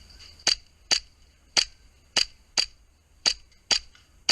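Airsoft gun firing single shots: eight sharp cracks in quick succession, about half a second apart.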